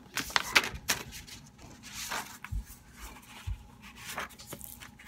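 A hardcover book being handled and turned: scattered paper rustles and sharp clicks, with two soft low thumps about halfway through.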